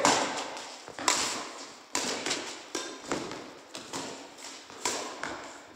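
Badminton rally: rackets striking the shuttlecock in a run of sharp hits, roughly one a second.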